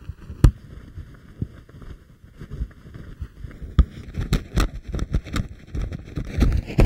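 Footsteps on dry dirt and scrub, brushing through dry grass and twigs, coming quicker and heavier in the second half as the walk breaks into a jog.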